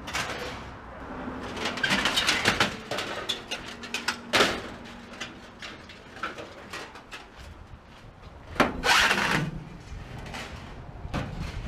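Irregular knocks and clatters of hard objects being handled, with louder bunches about two seconds in, around four and a half seconds in and about nine seconds in, over a low steady rumble.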